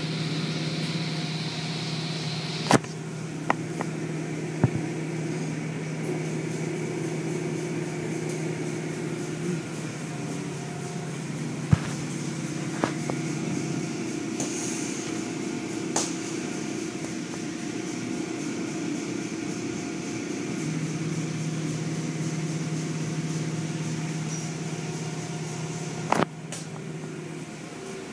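Automatic tunnel car wash heard from inside the car: a steady mechanical hum over a hiss of spraying water, with a handful of sharp knocks and slaps as the cloth curtains and brushes strike the windshield.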